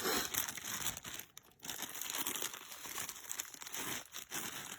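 Plastic packaging crinkling and rustling as a strap and mounting bracket are handled and pulled out of their bag, in irregular bursts with a short pause about a second and a half in.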